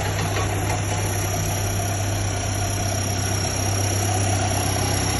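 Truck engine idling steadily with an even low hum.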